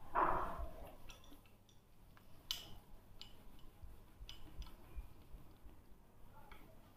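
Cloth rubbing over a whiteboard, a louder wiping stroke in the first second, with scattered light clicks and clinks of marker pens held in the hand.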